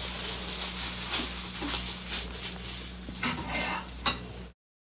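Steady hiss with a low electrical hum and a few faint knocks and rustles, then dead silence at an edit cut near the end.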